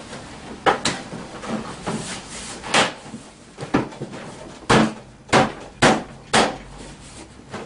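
Hard plastic body panel of a scooter's front hood being pressed and knocked into place by hand, giving a run of sharp plastic knocks and clacks, about seven, most of them in the second half and about half a second apart.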